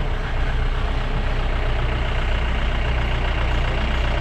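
A vehicle's engine running with a steady low rumble, heard from inside the cabin.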